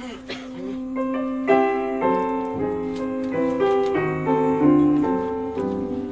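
Piano playing a run of notes over a held low note, an instrumental passage of a jazz ballad recording.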